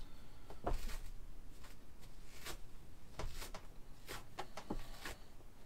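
Fabric rustling and ripping in about nine short, irregular strokes as a freshly ironed, still-warm iron-on hem-tape seam is pulled apart and the cloth is handled on the table.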